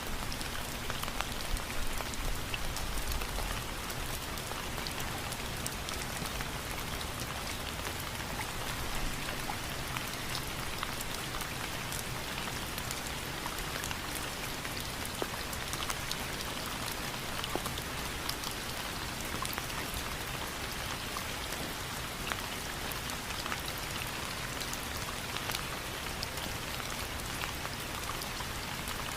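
Steady rain falling, with many separate drops ticking sharply over an even hiss.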